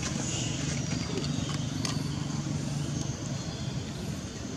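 A steady low engine hum, fading somewhat near the end, with a few faint clicks.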